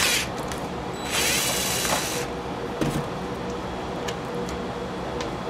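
DeWalt cordless drill-driver running for about a second, backing a screw out of a chainsaw's plastic side cover, followed by a few light clicks.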